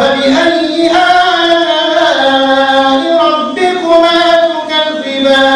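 A man's voice in melodic Quran recitation, led by the imam during prayer, with long held notes that slowly bend in pitch and brief pauses for breath.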